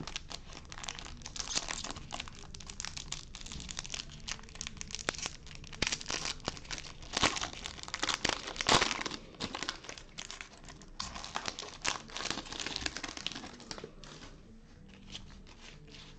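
Foil wrapper of a Topps Chrome baseball card pack crinkling and tearing as gloved hands open it, with dense crackling that peaks midway. It eases to a softer rustle near the end as the cards come out.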